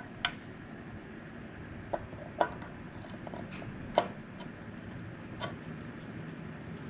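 About five sharp metal clicks and knocks, spaced out, as the engine's clutch side cover is worked onto its oiled shafts.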